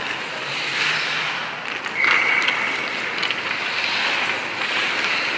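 Goalie skate blades scraping and carving the ice in shuffles and pushes, a rising and falling hiss, with a few sharp knocks and a brief high squeal about two seconds in.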